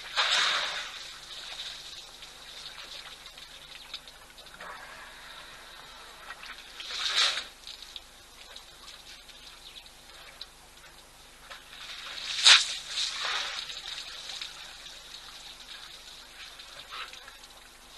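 African elephants drinking at a waterhole, water splashing and gushing from their trunks in a few separate bursts, the loudest about two-thirds of the way through.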